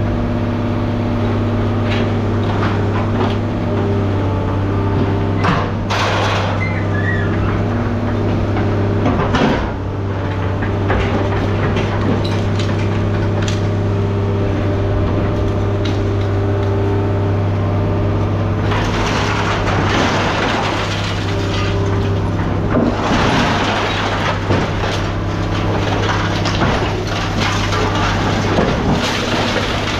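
An engine running steadily, with scattered knocks and a few bursts of rough scraping or crunching noise, the longest about two-thirds of the way through.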